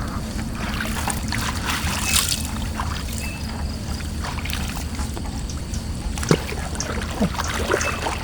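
Water splashing and dripping with scattered light knocks, over a steady low rumble, as a gill net is hauled up by hand from a small boat.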